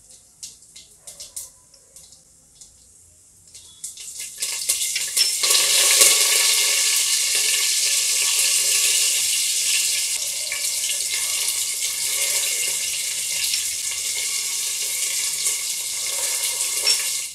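Cumin seeds crackling faintly in hot oil in a pressure cooker, then a loud, steady sizzle from about four seconds in as green chillies, curry leaves and ginger hit the oil for a tempering. The sizzle cuts off suddenly at the end.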